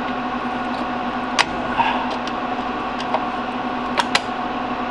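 A few sharp metal clicks as the battery tray of an IBM 2145 rack UPS is worked loose from its bay: one about a second and a half in, and two close together near the end. Under them runs a steady hum of rack equipment.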